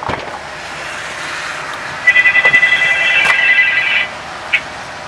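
An electronic beeping tone, a rapid high-pitched pulsing for about two seconds in the middle, over a steady background hiss, with a couple of sharp clicks and one short beep near the end.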